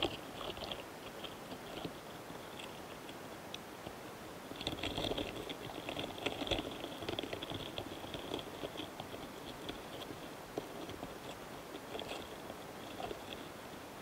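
Karakane flower longhorn beetles, recorded close up on a flower cluster, making rapid fine ticking and scratching as they court and pair up. The ticks thicken into busier runs from about a third of the way in to just past the middle.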